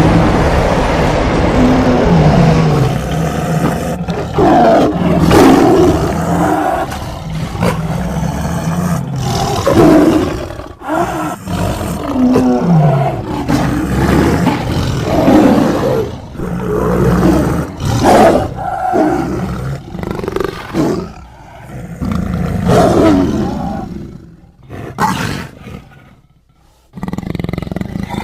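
A giant jaguar creature's roars and growls, made by layering big-cat roars (leopard, lion, tiger, sabre-toothed cat) with movie-monster calls. They come as a string of separate roars about every two to three seconds, with a short quiet gap near the end before one more roar.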